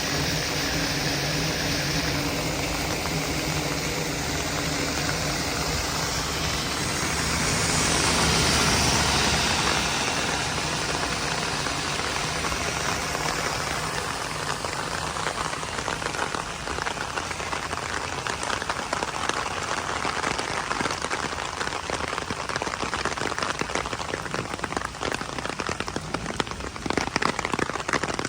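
Heavy rain, a dense steady wash of noise. A low steady hum lies under it for the first several seconds, and the sound swells briefly about eight seconds in. From the middle on, the rain becomes a dense crackle of drops hitting a surface, growing stronger toward the end.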